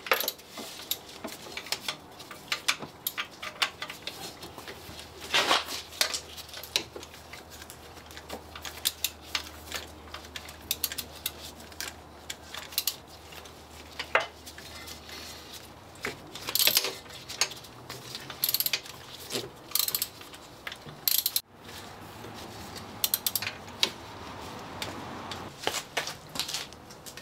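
Socket wrench and metal tools clinking and clicking in irregular, scattered strokes while the starter motor's lower mounting bolt is tightened.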